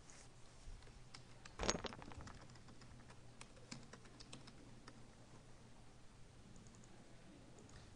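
Computer keyboard typing: a run of quiet key presses, the loudest click about a second and a half in and a few more keys near the end, over a faint steady low hum.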